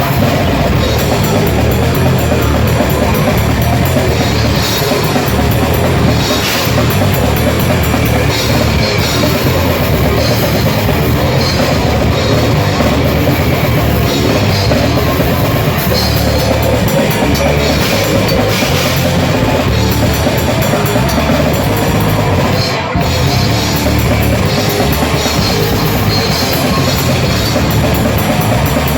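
Grindcore band playing live and loud: distorted guitars and bass over fast, dense drumming with cymbals.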